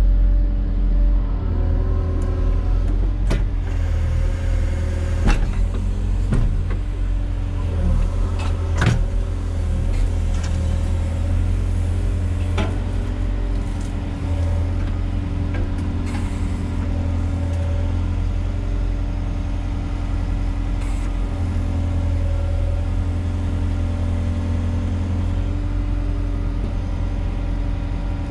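Volvo EWR150E wheeled excavator's diesel engine running steadily: a low drone with several steady tones above it. A handful of sharp knocks come in the first half.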